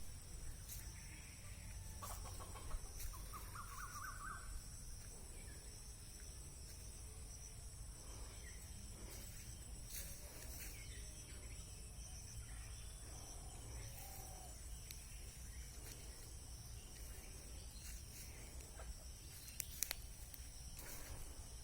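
Faint chicken clucking, with a quick run of short notes about three seconds in, over a steady low hum and a steady high hiss.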